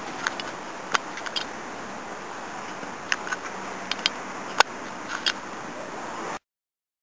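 Steady outdoor background hiss with about a dozen sharp, irregular ticks scattered through it; it cuts off abruptly near the end.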